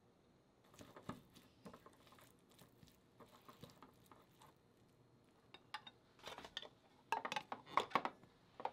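Chopsticks tossing dressed shredded cabbage in a glass bowl: soft rustles and light clicks against the glass. In the last few seconds come louder clinks and taps of glassware, as a small glass storage container is handled.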